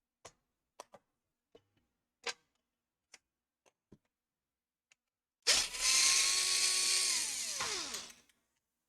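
Several light, scattered clicks, then about five seconds in a small electric screwdriver runs for about two and a half seconds, driving a laptop case screw. Its motor whine holds steady, then falls in pitch as the motor stops.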